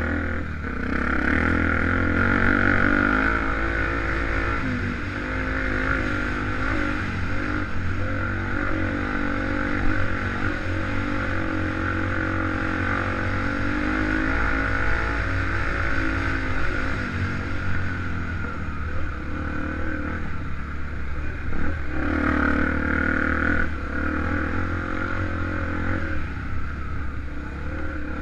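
Honda XR250 Tornado single-cylinder four-stroke enduro motorcycle engine running under way, revs rising and falling with the throttle. The engine swells louder about two seconds in and again around twenty-two seconds.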